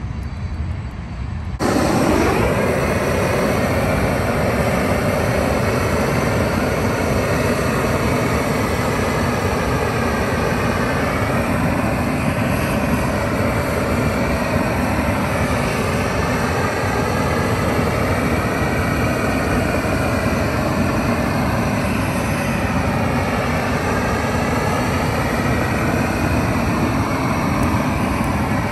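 Propane weed-burner torch burning at full flame: a loud, steady rush of gas flame that cuts in suddenly about two seconds in and holds without a break.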